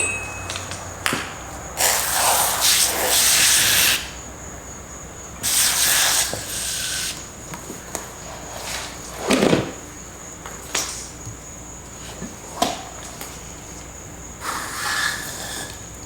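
Soapy water sprayed onto a lawn tractor's wheel rim to hunt for an air leak. It comes as hissing bursts: about two seconds long a couple of seconds in, a shorter one about six seconds in, and a brief one near the end, with a few light knocks between. Crickets chirp steadily behind.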